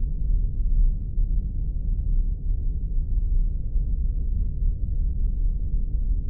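Spaceship engine ambience sound effect: a steady, deep rumble that neither rises nor falls, with faint scattered crackles above it.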